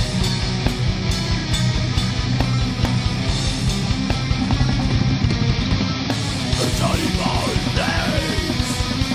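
Heavy metal band recording: distorted electric guitars and bass over fast, driving drums, with high sliding notes coming in about seven seconds in.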